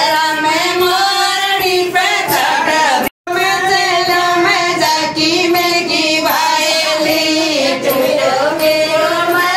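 Women singing a Gangaur festival folk song, a sung melody with no instruments standing out. The sound cuts out completely for a moment about three seconds in, then the singing carries on.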